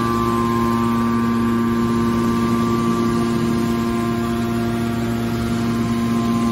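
Hydraulic scrap-metal baler's power unit, its electric motor and pump running steadily: an even hum with a few fixed tones.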